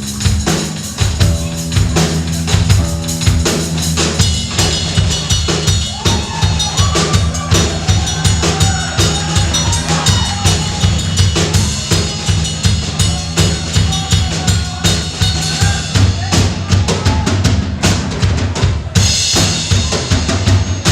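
Live rock band playing: a drum kit driving a steady beat of bass drum and snare over sustained bass notes, with a wavering melodic line in the middle and crashing cymbals near the end.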